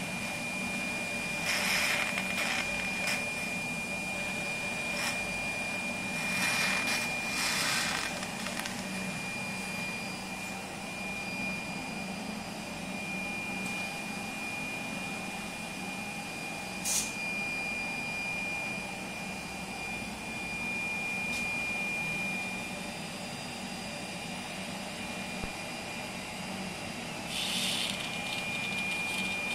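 Indusbello endodontic aspirator running, a steady suction hum with a thin high whistle over it. A few short hissing bursts break through, the first as the tip draws liquid from the cup.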